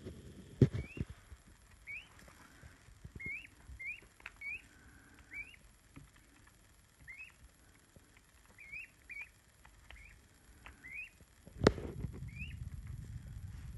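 Peachick giving short rising peeps, a dozen or so spaced irregularly, with a few light taps as it pecks at bread held in a hand. A sharp knock near the end is the loudest sound.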